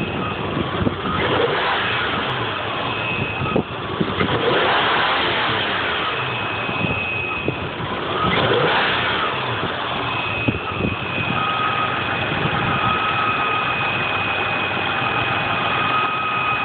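Isuzu 6VE1 V6 engine running with a high, thin, steady whistle over the engine note. The revs swell and fall back twice, about four and eight seconds in.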